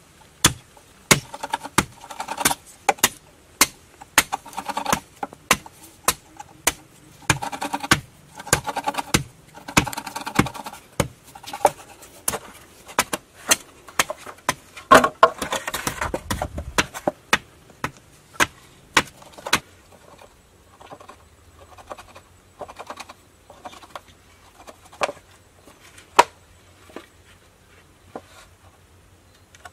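A knife chopping and cutting into a green bamboo tube: irregular sharp taps and knocks, busiest in the first half, with a short scrape around the middle, then fainter, sparser taps.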